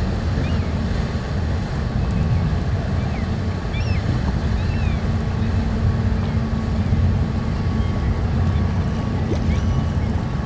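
The Bastø Fosen car ferry's engines running in a steady low rumble with a faint hum as it lies at the ferry berth. A few faint high chirps sound over it.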